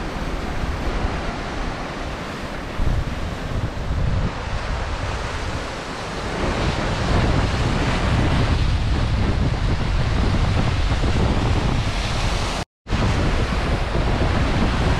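Lake Superior waves breaking and washing over shoreline rocks, with strong wind buffeting the microphone in a low rumble. The sound drops out for an instant near the end.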